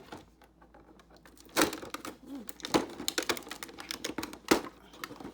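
Cardboard and plastic packaging being handled and opened by hand: a run of sharp clicks and crinkles, with three louder snaps about a second and a half, nearly three, and four and a half seconds in.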